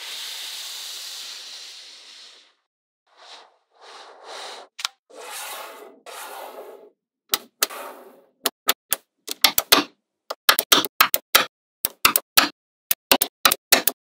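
Small magnetic balls being handled: a hissing, rattling rub that fades out over the first two seconds, a few short scraping swishes, then a run of sharp clicks as the balls snap together, coming quicker in the last few seconds.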